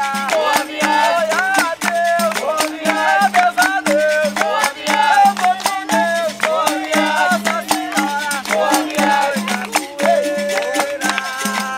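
Capoeira music: a group singing a call-and-response song over steady hand clapping. Berimbau musical bows keep a repeating low twanging note, with the rattle of their caxixi shakers.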